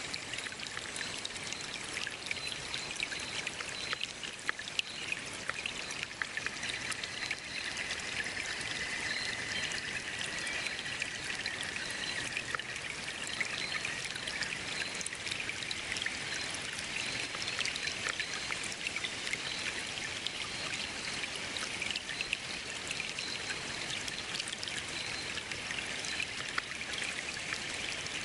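Running water flowing and splashing steadily, with many small splashy ticks.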